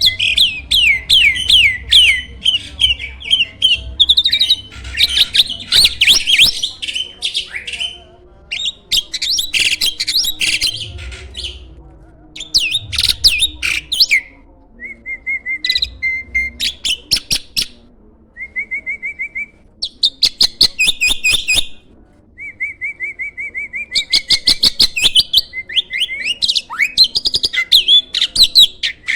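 Jalak (starling) singing loud, varied song: bursts of fast chattering, rising whistled notes and clicks, broken by short even trills and brief pauses.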